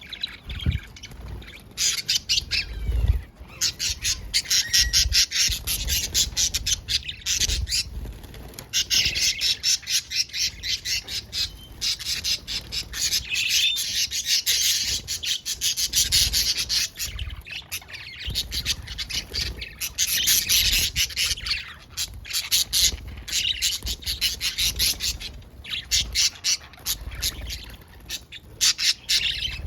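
Several parrots chattering and squawking at once, a dense run of rapid, high-pitched calls with a few short lulls.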